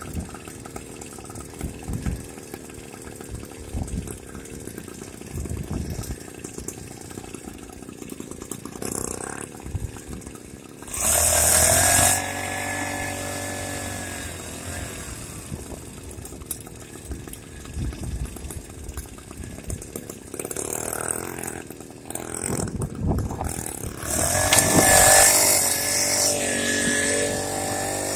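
Small motorized-bicycle engine running, revving up loudly about eleven seconds in and again near the end, each time settling into a steady pitch. Before the first rev there is a rough rumble with scattered knocks.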